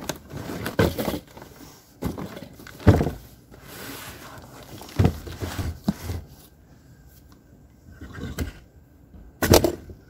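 Cardboard boxes being handled: rustling and scraping as a heavy boxed sump pump is worked out of its shipping carton, with several thuds and knocks, the loudest about three seconds in, as the box is set down on a wooden table.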